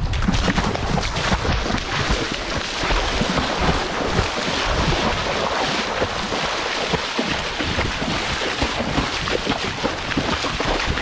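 Wind buffeting an action camera's microphone in steady, gusty rumbles, with a hiss of open-air wind.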